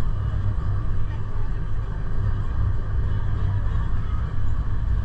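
Steady low rumble of the Gornergrat electric rack railway train running.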